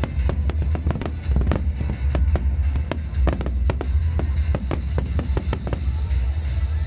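Fireworks display bursting in a rapid series of sharp cracks and bangs, several a second, over a deep rumble. The bursts thin out and stop near the end.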